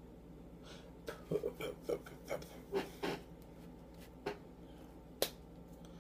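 Light taps and knocks from gesturing hands: a quick run of about a dozen short clicks between one and three seconds in, one more a little after four seconds, and a single sharp click just after five seconds.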